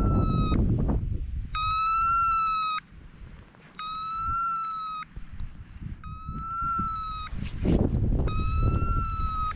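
Hunting dog's beeper collar sounding long, even beeps about every two seconds in point mode, signalling that the pointer is standing on point. Wind rumbles on the microphone at the start and again near the end.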